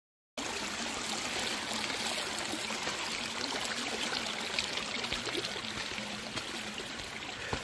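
A small stream of water flowing steadily, a continuous trickling rush that starts abruptly just after the beginning.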